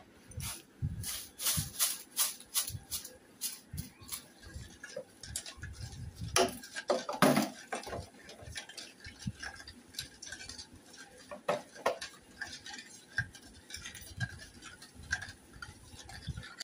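A metal spoon stirring and scraping in a steel bowl of mashed mango pulp and water, a steady run of short clinks and scrapes, busiest and loudest about halfway through.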